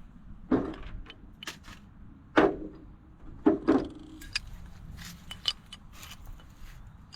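Metal pipe fittings and tools clinking and knocking as they are handled: a few sharp knocks in the first four seconds, then lighter ticks and clicks.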